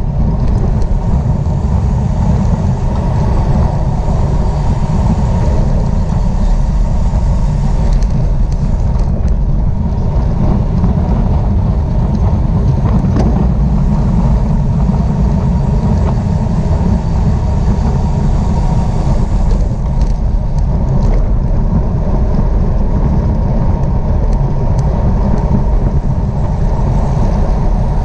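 Steady wind noise rushing over the microphone of a camera on a bicycle moving at race speed.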